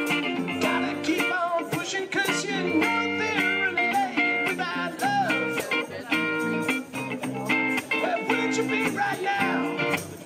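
Live rock/blues band playing, with an electric guitar playing lead lines that bend in pitch over bass guitar and a steady beat.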